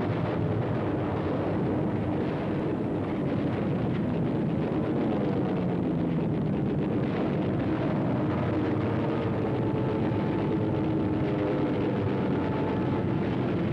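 Old newsreel battle soundtrack: a steady din of aircraft engines with wavering, gliding tones, under dense rapid gunfire.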